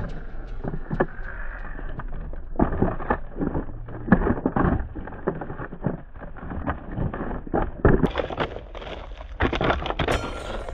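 Axial SCX24 micro RC crawler clambering over rock, with many irregular clicks, knocks and scrapes of its tyres and chassis on the stone.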